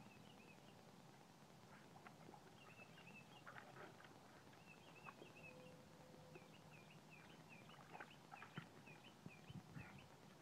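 Faint splashing and sloshing of water as a small dog paddles in a plastic kiddie pool, with scattered light ticks and knocks. Runs of short high chirps, about three a second, come and go through it.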